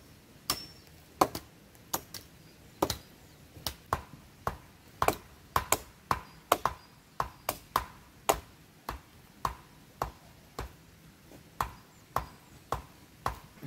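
Repeated chopping strikes on wood, about two a second and unevenly spaced, each a sharp knock.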